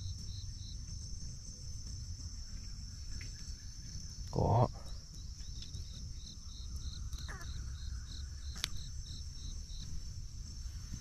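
Insects: a steady high-pitched buzz with a cricket-like chirp repeating about three times a second, which stops for a few seconds in the middle and then resumes. A short, loud vocal sound cuts in about four and a half seconds in.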